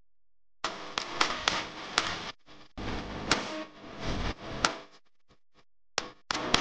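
Steel spoon stirring and scraping dark sugar syrup in a small stainless steel saucepan, with sharp clinks against the pan's side. It comes in three spells of stirring, with a pause of about a second near the end.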